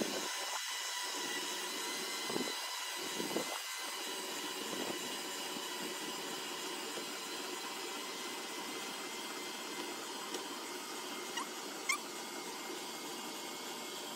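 Battery-powered electric winch running steadily with a faint whine, hauling a timber drawbridge door on its cable through pulleys. A couple of sharp clicks come near the end.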